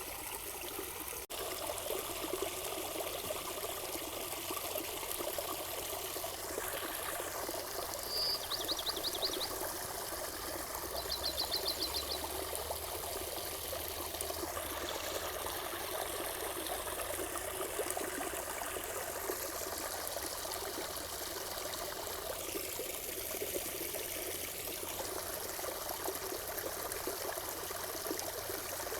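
Running water trickling and pouring steadily. A short, high, rapid trill sounds twice, about eight and eleven seconds in, and there is a brief dropout about a second in.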